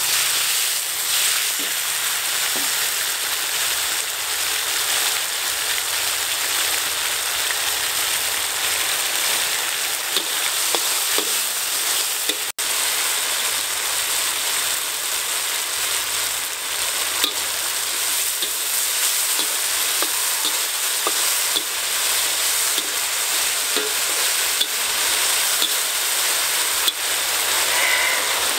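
Beef pieces sizzling in hot oil in a wok, stirred and scraped with a metal spatula, with scattered light clicks of the spatula against the pan over the steady hiss.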